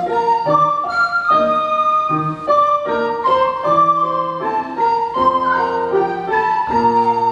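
Recorder ensemble playing an arrangement of classical music in several parts, with held notes that move together from chord to chord.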